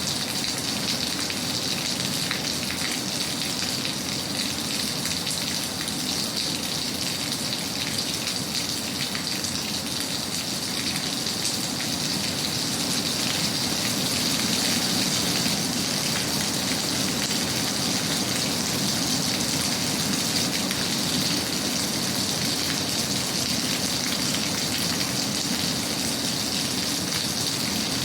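Steady rain falling, an even wash of raindrops with no change in strength.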